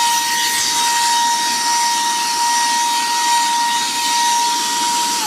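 Cordless handheld vacuum cleaner running: a steady high motor whine over a rushing air hiss, its whine starting to drop in pitch at the very end as it is switched off and winds down.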